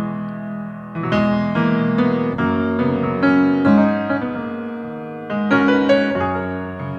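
Yamaha grand piano played solo: full chords struck about once a second and left to ring.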